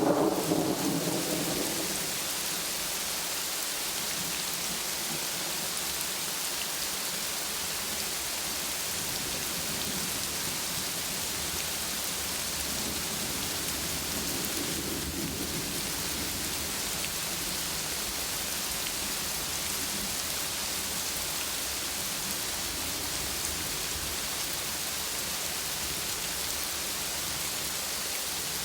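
Thunderstorm: rain falling steadily, with a rumble of thunder dying away over the first two seconds and a fainter roll of thunder about halfway through.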